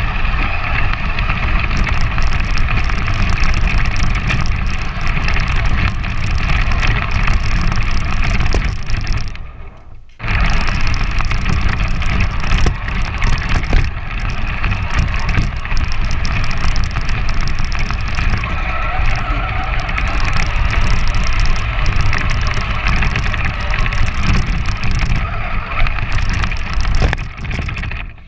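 Electric 4x4 RC truck driving, heard from a camera on its body: the motor and gears run with a heavy rumble of tyres and body vibration over pavement and snow. The sound breaks off for about a second near the middle and cuts off at the end as the truck stops against a snowbank.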